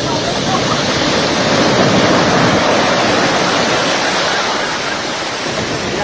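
Heavy storm surf breaking and washing up the beach in a loud, steady rush, swelling a little louder about two seconds in: waves raised by a tropical storm.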